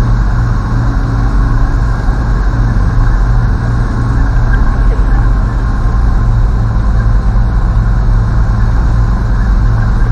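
Semi-truck diesel engine running steadily at low speed, a continuous low drone with rolling noise from the tyres on the dirt yard.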